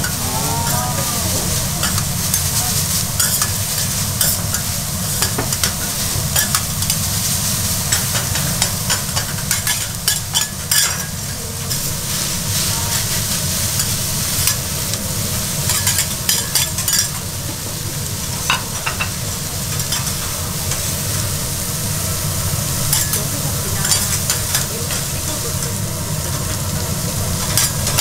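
Bean sprouts sizzling on a hot iron griddle while two metal spatulas toss and scrape them, steel clicking and scraping on the plate in repeated clusters over a steady hiss.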